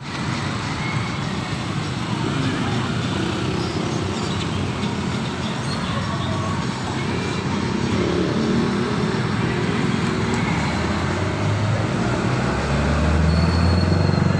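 Steady street traffic at an intersection, motorcycles, tricycles and cars going by. About twelve seconds in, a low engine rumble from a vehicle close by grows louder.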